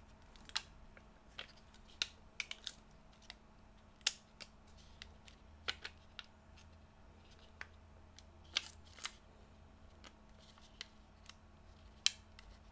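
Scattered light plastic and metal clicks and taps from handling laptop internal parts, irregular and a second or so apart, with a few louder clicks about two-thirds of the way through.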